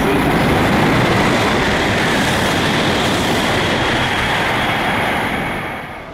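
Series 800 Shinkansen bullet train passing through a station at high speed without stopping: a loud, steady rush of wheel and air noise that drops away near the end.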